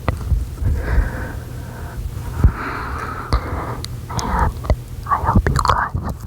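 Close-up, semi-inaudible whispering with breaths and wet mouth clicks, over a steady low hum.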